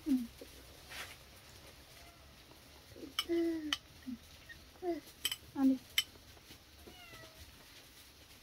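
A series of short animal calls, several of them falling in pitch, with a few sharp clicks in between.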